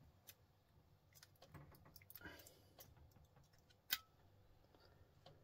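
Faint, irregular small clicks from hands working a computer cable connector and pulling out its pins, with one sharper click about four seconds in.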